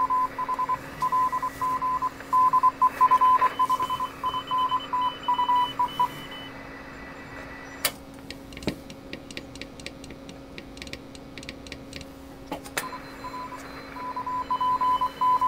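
Morse code (CW) heard through a Heathkit HR10B receiver's speaker: a tone of about 1 kHz keyed on and off in dots and dashes over band hiss. It stops about six seconds in. After a stretch of hiss with a quick run of faint clicks, the keyed tone starts again near the end.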